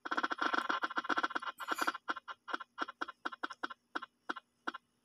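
Spin-the-wheel app on a phone ticking as its wheel spins: rapid clicks that slow steadily as the wheel winds down, heard through the phone's speaker.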